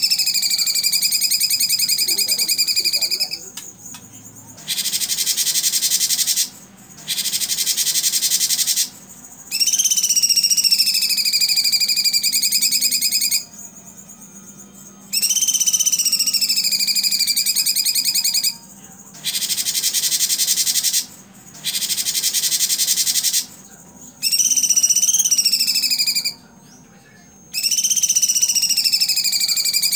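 Cucak cungkok singing its harsh 'tembakan' song. Long rapid buzzy trills that dip in pitch and then hold level alternate with pairs of harsh, dense rattling bursts. Each phrase lasts two to four seconds, with short pauses between them.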